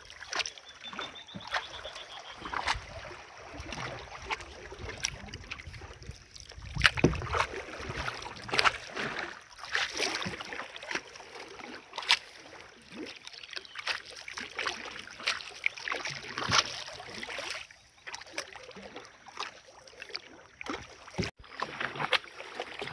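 Small wooden canoe being paddled: irregular splashes of the paddle blade in the water every second or so, with water lapping and trickling along the hull and sharp clicks and knocks now and then.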